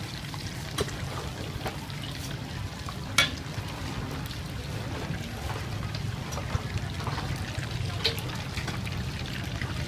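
Hot oil bubbling and sizzling as batter fritters deep-fry in a pan, over a steady low hum. A few sharp clicks stand out, the loudest about three seconds in.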